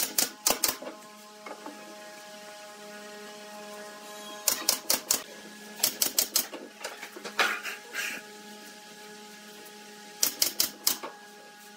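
Pneumatic nail gun firing in quick bursts of four or five shots, five bursts in all, driving nails through pine pallet slats into a bench frame.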